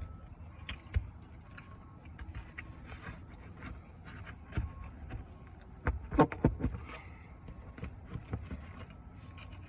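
Scattered taps, clicks and scrapes of hand tools working under asphalt roof shingles to loosen and pull the nails, with a quick run of louder knocks about six seconds in.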